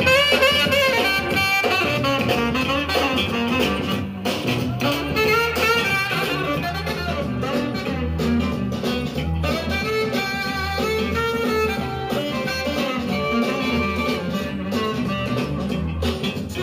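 Recorded music playing from a 7-inch vinyl single on a DJ turntable, through a club sound system.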